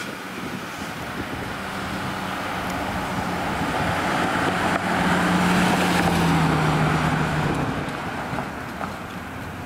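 A Ford box ambulance driving past: its engine and tyre noise grow louder to a peak about halfway through, then fade as it pulls away. A low engine hum drops slightly in pitch as it goes by. No siren is sounding.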